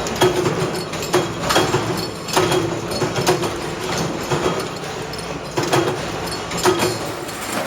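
Workshop machinery running, with sharp metallic knocks about once a second, each ringing briefly, over a steady machine hum.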